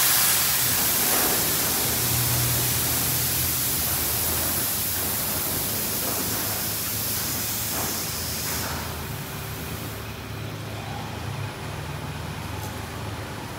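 D&S IQ Express automatic car wash spraying water over the car, a steady hiss heard from inside the car that slowly fades and thins out about nine seconds in, over a low machine hum.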